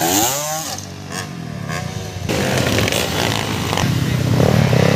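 Dirt bike engines revving on a motocross track: one bike's note sweeps up and down in the first second. From about two seconds in the engine noise grows louder, and a rising rev comes near the end.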